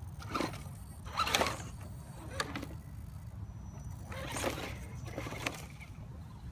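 Dry fallen leaves rustling and crunching in about five short bursts, over a low steady rumble.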